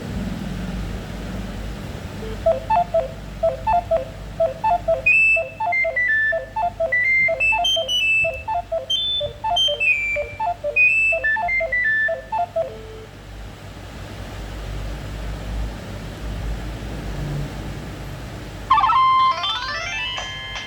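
A Nokia 7210 ringtone played through a Nokia 2760 phone's speaker. It is a quick repeating figure of short beeping notes, with a higher melody joining a few seconds later, and it stops after about ten seconds. Another ringtone starts near the end with a rising sweep.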